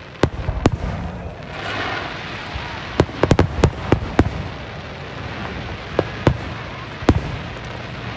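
Aerial fireworks shells bursting: a dozen or so sharp bangs, two near the start, a quick run of about six between three and four seconds in, and a few more spread out after. A short hiss comes in between the first bangs and the run.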